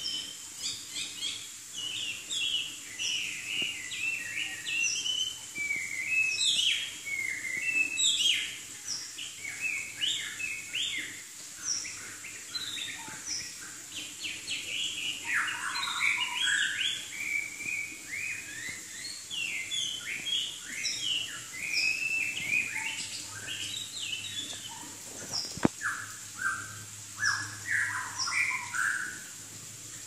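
Male Chinese hwamei (Garrulax canorus) singing a long, rapid run of varied whistled phrases, with notes sliding up and down and breaking only briefly. A single sharp click sounds near the end.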